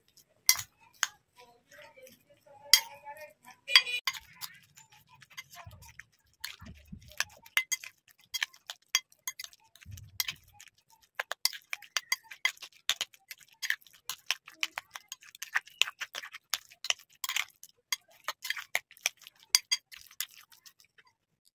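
A hand mashing and mixing a potato, egg and chopped vegetable filling in a glass bowl: a long run of irregular sharp clicks and taps as fingers and a bangle knock against the glass. There are a few soft bumps, and one brief ringing clink of the glass about three seconds in.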